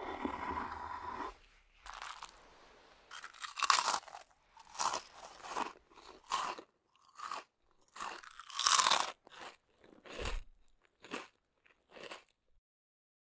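Someone biting and chewing crunchy food, with a run of short crunches about one or two a second that thin out and stop shortly before the end. A rougher, denser rustling sound comes in the first second.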